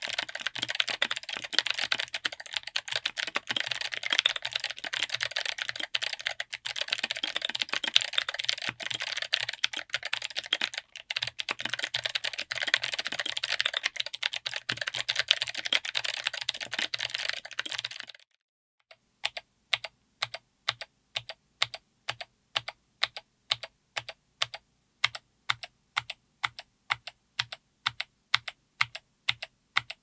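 Mechanical keyboard with Kailh BOX Night Firefly clicky switches, SA-profile ABS keycaps, an FR4 plate and an aluminium case, typed on fast and continuously with crisp clicks. After a short break about two thirds of the way in, keys are struck one at a time at an even pace of about two to three a second.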